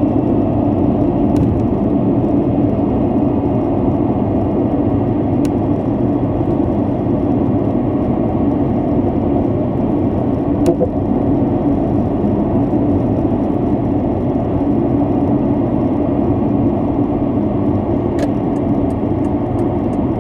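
Steady road noise inside a car cruising at expressway speed: a low rumble of tyres on asphalt and the running engine, with a few faint clicks.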